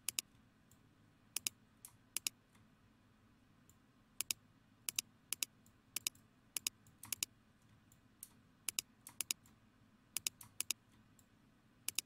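Computer mouse button clicks, mostly in quick press-and-release pairs, coming irregularly every half second to a second or so over a faint low hum.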